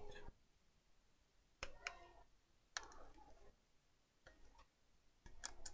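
Faint, scattered clicks and taps of a screwdriver and small parts while the heatsink is taken off a Samsung RV511 laptop: a few separate clicks, then a short cluster near the end.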